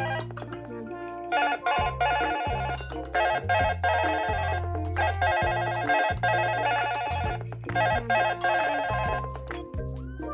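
Smartphone alarm tone playing: an electronic melody over a bass line, with a bright ringing trill that keeps coming back.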